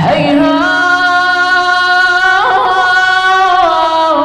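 A man's solo voice chanting a long, held melodic line in the Iraqi style of supplication recitation, the note ornamented with small pitch turns and stepping down twice.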